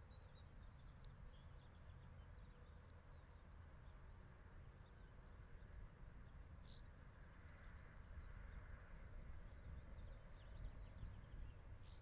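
Near silence: faint outdoor ambience, a low steady rumble with a few faint, short, high bird chirps.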